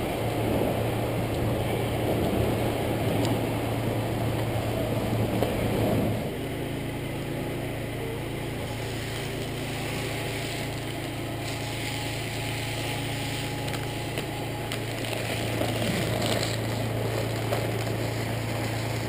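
A steady low mechanical hum, with a rougher rumbling noise over it that stops abruptly about six seconds in.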